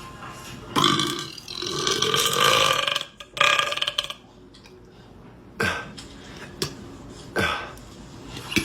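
A man burping loudly. About a second in comes one long, drawn-out burp that rises in pitch, then a shorter one, followed by a few short, sharp burps spaced about a second apart.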